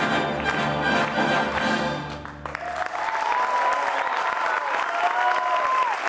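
A youth orchestra of strings and brass ends the piece on a held chord that cuts off about two and a half seconds in. The audience then applauds, with cheering over the clapping.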